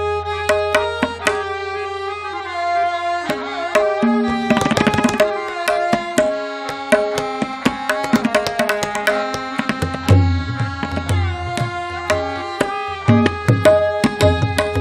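Tabla solo: fast stroke patterns on the dayan and bayan, with a deep sustained bass tone from the bayan in the first few seconds and a dense flurry of rapid strokes about four to five seconds in. Underneath, a harmonium holds a steady repeating lehra melody.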